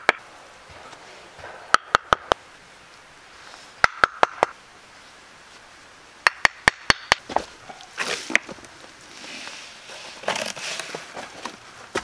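Hammer blows in quick bursts of four or five sharp, ringing strikes, three bursts a couple of seconds apart. After that come scraping and rustling.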